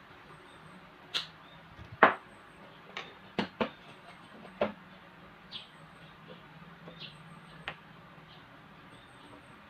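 Scattered clicks and knocks of an electric fan's plastic housing and motor stator being handled while the motor's thermal fuse is tied down with a cable tie, about nine irregular knocks with the loudest about two seconds in.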